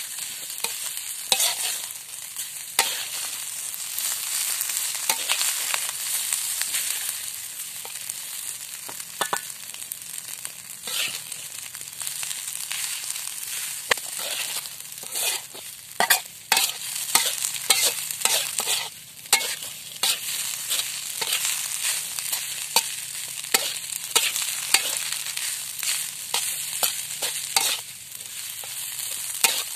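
Rice stir-frying in a metal wok: a steady sizzle, with a spatula repeatedly scraping and clinking against the pan as the rice is turned.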